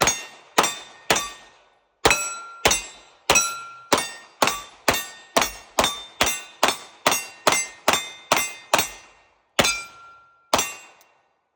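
Pistol firing about twenty rounds: three shots, a short pause, a fast steady string of about fifteen at roughly two a second, then two slower final shots. Each shot is followed by a brief metallic ring.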